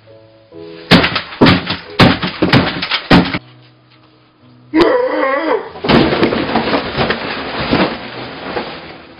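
Over light background music, a quick run of loud thumps, then a wavering yell and a long crash as a table set with plates and plastic sippy cups is knocked over.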